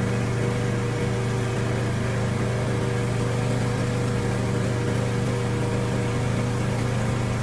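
Boat engine running at a steady speed, a constant low hum that does not change.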